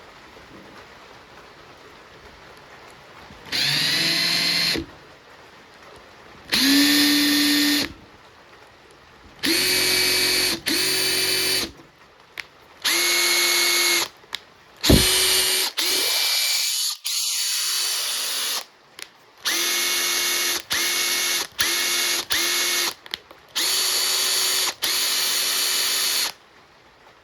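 Makita TP141D 18V cordless 4-mode impact driver run in about a dozen short trigger pulls, each a steady motor-and-gear whine lasting one to one and a half seconds. A few rise in pitch as they start, and one longer run in the middle slides down in pitch.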